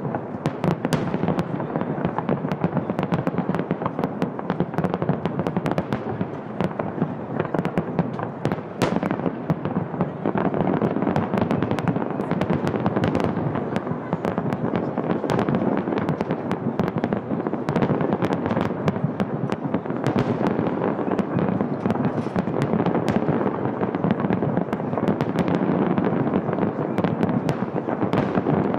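Fireworks display: aerial shells bursting in a dense, unbroken barrage of bangs and crackles.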